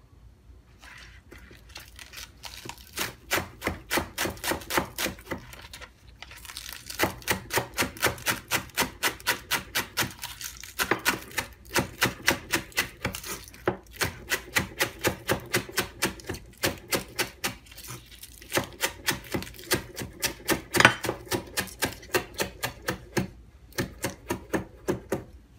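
Knife finely chopping green onions on a cutting board: quick, even strokes about four or five a second, in runs broken by short pauses.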